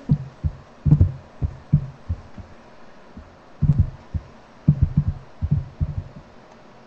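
A string of short, muffled low thumps at irregular spacing: a cluster in the first two seconds, a pause, then more from about three and a half seconds in.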